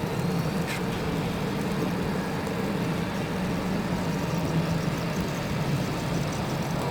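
Machinery running steadily: a low, even hum with a broad rushing noise over it.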